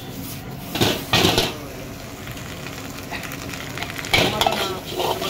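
Metal ladle scraping and clanking against a large metal wok as rice is stir-fried, over a steady sizzle. The loudest scrapes come about a second in and again about four seconds in.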